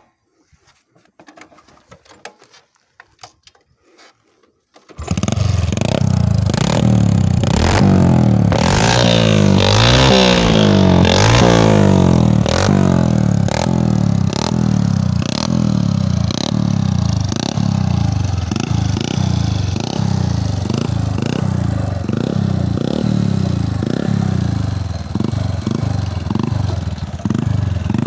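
Modified Bajaj CT 100 motorcycle's single-cylinder four-stroke engine, breathing through a car exhaust silencer, comes in suddenly about five seconds in and is revved hard. It is followed by a long run of quick throttle blips, each rising and falling, a little more than one a second.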